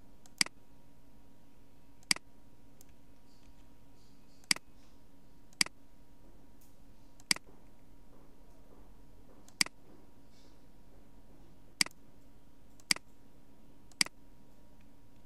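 Computer mouse clicking: nine single sharp clicks spaced irregularly about one to two seconds apart, over a faint steady hum.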